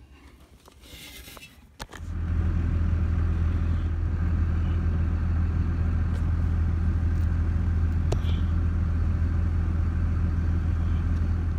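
A vehicle engine running steadily at idle, heard from inside the cab. It comes on abruptly about two seconds in and holds a low, even hum.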